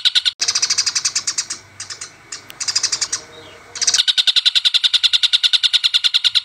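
Birdsong of fighting Eurasian tree sparrows and an oriental dollarbird, edited together: a fast, even run of harsh chattering calls cuts off abruptly about a third of a second in, then scattered chirping over background hiss, and about four seconds in the fast chattering run starts again.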